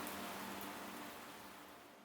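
A steady rain-like hiss over a few low held tones, fading out gradually.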